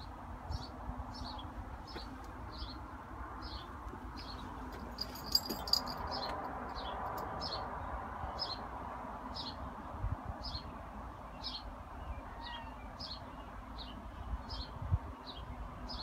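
A small bird repeating a short, high, downward chirp about one and a half times a second.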